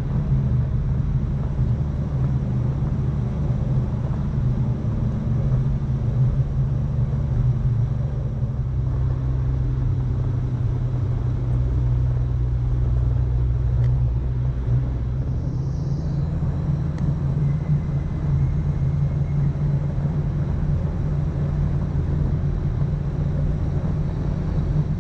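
Overland vehicle's engine running at steady speed while driving, with road noise; its note shifts about nine seconds in and again about fifteen seconds in.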